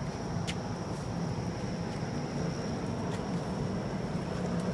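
Steady low mechanical hum with a thin, constant high-pitched whine over it, and two faint clicks about half a second and three seconds in.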